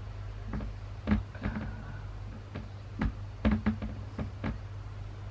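A few soft, irregular strikes on an acoustic drum kit, about ten hits spaced unevenly with the loudest cluster past the middle, over a steady low hum.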